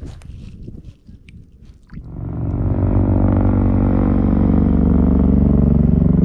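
A few light clicks and handling noises, then about two seconds in a quadcopter drone's propellers start up a loud, steady hum made of several pitches that drift slowly as the drone flies overhead.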